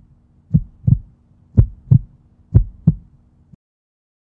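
Heartbeat sound effect: three double thumps, about one a second, over a low steady hum, cutting off suddenly about three and a half seconds in.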